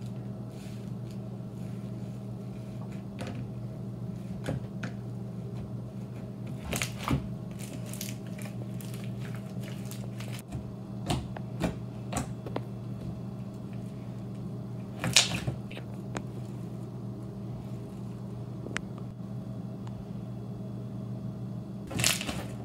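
Foam-bead slime (floam) being pressed and kneaded by hand, giving scattered squishes and crackles from the foam balls, over a steady low hum.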